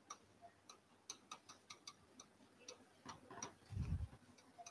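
Faint, irregular clicks of a pen tapping on the glass of an interactive display as words are handwritten on it, with a dull low thump near the end.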